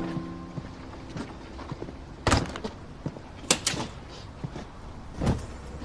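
A few sharp clicks and knocks over a quiet room: one about two seconds in, a quick pair near the middle, and another near the end.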